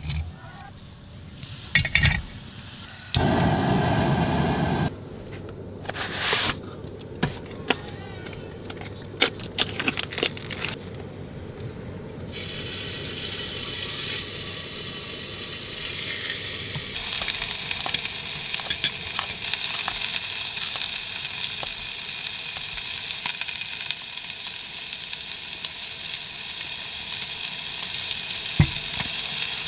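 Meat sizzling steadily in a hot pan, which starts about twelve seconds in. Before that come scattered clicks and knocks of cooking gear being handled, and a loud rushing noise lasting about two seconds.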